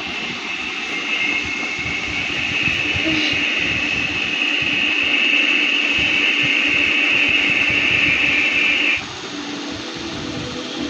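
Eerie space-sound recording: a high hissing whine that swells for about nine seconds and then cuts off suddenly, over a low steady hum.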